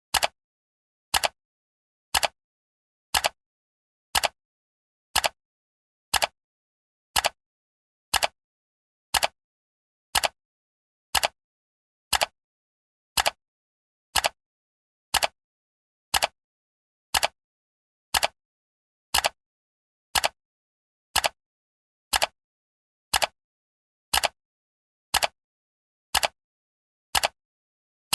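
Countdown timer ticking, one sharp clock tick each second, with silence between ticks.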